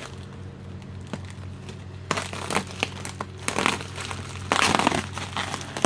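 Bubble wrap around a motorcycle fairing being handled by hand, crinkling and crackling in irregular bursts that start about two seconds in and are loudest near the end, over a steady low hum.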